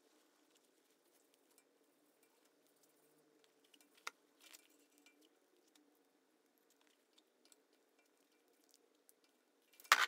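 Faint rustling and small clicks of vinyl electrical tape being wrapped by hand over the screw terminals of a toggle switch, with one louder sharp snap near the end.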